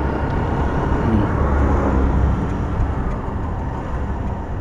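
KPR motorcycle riding along a town road: a steady engine and road rumble mixed with wind noise, swelling slightly about halfway through.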